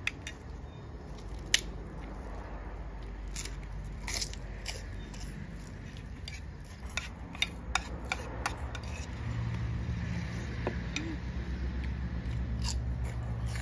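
A person eating: a metal spoon scraping and clicking on a ceramic plate, with chewing and crunching of crisp food, and a bite into a puffed pork rind near the end. A low steady hum comes in about nine seconds in.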